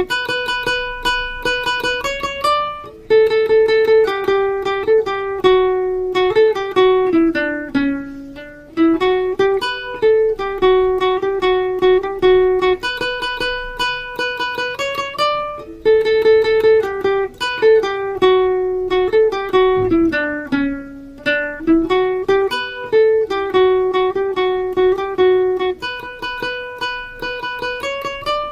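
Instrumental ringtone melody picked on a guitar in quickly repeated notes, with the phrase starting over about every 13 seconds.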